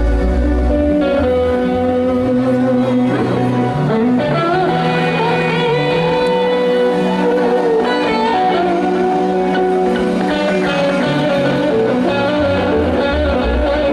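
Live band music led by an electric guitar playing a melodic lead line with held and bent notes over steady low bass notes.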